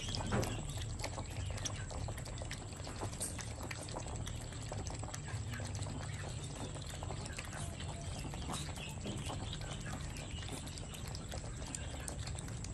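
Several puppies lapping milk together from one shallow bowl: a dense, irregular patter of small wet licks and smacks, over a low steady hum.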